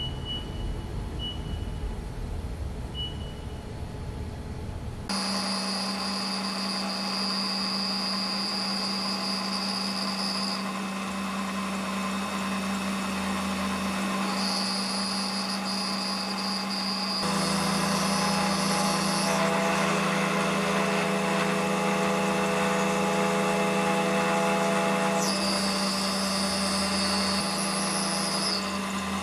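A CNC milling machine's spindle starts about five seconds in and runs steadily while the end mill cuts metal bracket stock, adding a high-pitched cutting whine that comes and goes as the tool passes over the part. Before the spindle starts, there are a few short beeps and a low rumble.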